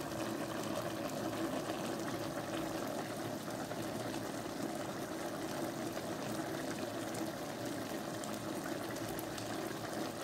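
Plantain and vegetable stew bubbling at a steady boil in a pan on a gas stove.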